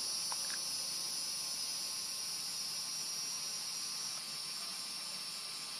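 Steady, high-pitched chorus of insects, a continuous drone that eases slightly about four seconds in.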